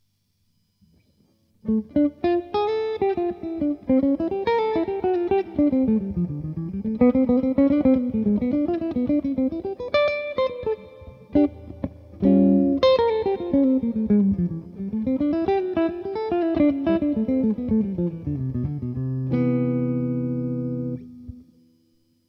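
ES-335-style semi-hollow electric guitar through a Brunetti Single Man amp, playing fast runs of single notes that climb and fall, with a few chord strikes about halfway through. It ends on a held chord that is cut off near the end.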